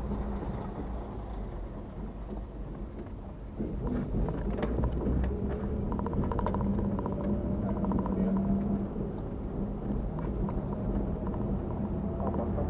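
Mitsubishi Pajero running along, heard from inside the cabin: a steady engine hum with road rumble and small rattles. It gets louder about three and a half seconds in, and a tone climbs slowly through the middle as the vehicle speeds up.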